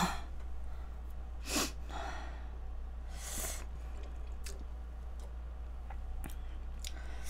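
A few short breaths through the nose and light clicks of chopsticks against the dishes, over a steady low electrical hum.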